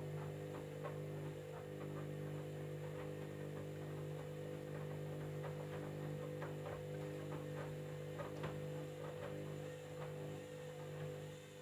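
Candy washing machine running through its jeans cycle with a steady electrical hum, faint ticks and splashes scattered over it; the hum drops away near the end.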